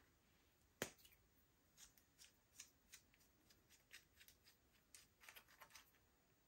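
Faint sticky pops and crackles of slime being worked by hand, irregular and scattered, with one sharp click about a second in that is the loudest sound.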